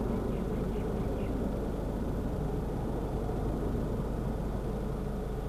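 Distant Boeing 727 jet engines, three Pratt & Whitney JT8D low-bypass turbofans, giving a steady rumble as the airliner climbs away.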